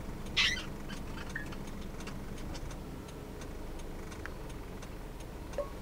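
A car's turn signal ticking rapidly and regularly over the low steady hum of the engine, with a short high-pitched sound about half a second in.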